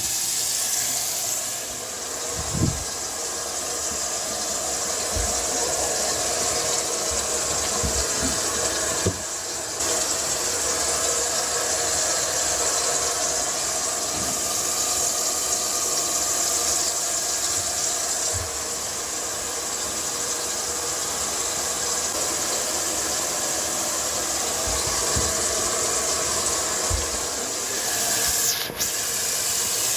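Newly installed kitchen garbage disposal running on test with tap water flowing into the sink, a steady motor noise under rushing water, with a few light knocks.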